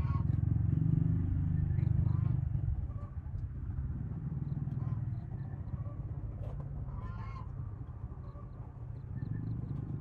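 A loud, steady low rumble, heaviest in the first three seconds, with poultry calling faintly over it.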